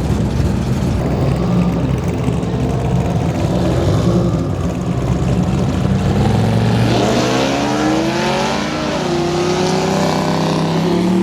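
Drag-racing car engine running low and steady, then accelerating hard about seven seconds in, its pitch climbing steeply before levelling off.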